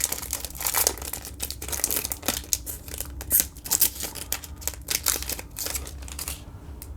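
Plastic wrapper of a Panini Contenders football card pack crinkling and tearing as it is ripped open and handled, a dense run of crackles that thins out near the end.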